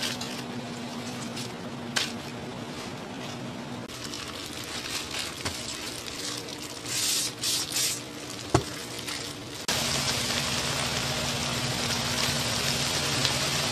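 Food sizzling in a hot pan as it is reheated, with the knock of a utensil against the pan about two-thirds of the way in; the sizzling gets louder near the end.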